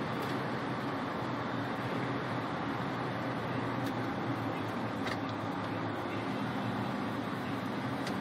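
Steady engine hum and tyre-on-road noise inside a car's cabin, cruising at an even speed, with a few faint clicks.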